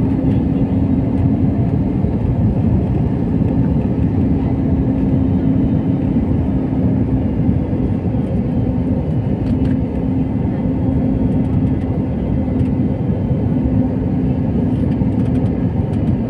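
Jet airliner's turbofan engine and rushing air heard from inside the cabin beside the wing in flight: a steady, loud roar with a steady low hum running through it.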